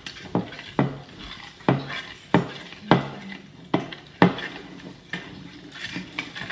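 A spoon knocking and clinking against the inside of a glass bowl while slime is being stirred: a run of sharp knocks, about two a second, each with a brief ring.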